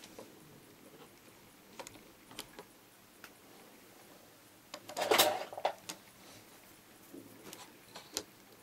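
Small clicks and taps of hands handling a circuit board, a test probe and a wire, with a louder clatter lasting under a second about five seconds in and a few sharp clicks near the end.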